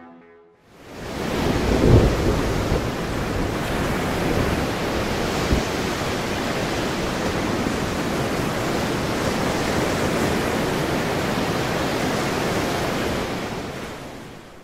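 Sea surf: a steady rush of breaking waves, swelling about two seconds in and fading out near the end.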